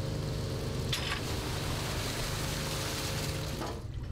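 A fishing boat's engine humming steadily under a hiss of water streaming and splashing off the net and fish on deck; the hiss falls away near the end while the engine carries on.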